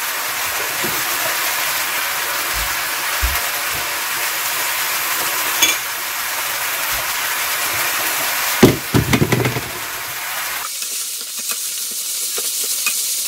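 Chanterelle mushrooms sizzling steadily in a frying pan. There is a loud knock and a short clatter about nine seconds in, and the sizzle thins to a high hiss near the end.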